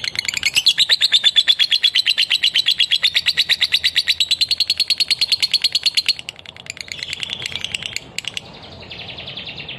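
Lovebird singing a long, unbroken 'ngekek' trill of rapid, shrill, evenly repeated notes, about ten a second. This nonstop run is what bird keepers call a 'konslet' lovebird. The trill stops about six seconds in and gives way to softer, uneven chatter.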